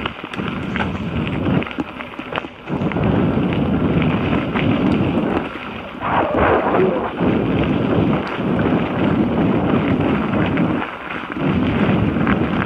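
Wind rushing over a helmet camera's microphone, mixed with the crunch and rattle of an Orbea Alma 29er hardtail mountain bike's tyres rolling fast over a gravel forest track. The rush surges and eases, briefly dropping a couple of times.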